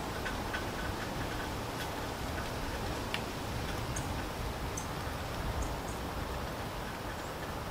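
Steady rain falling, with many light, irregular ticks scattered through it.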